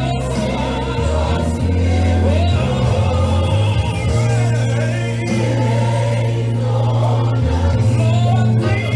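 Recorded gospel song playing: voices and a choir singing over long held bass notes that change every second or two.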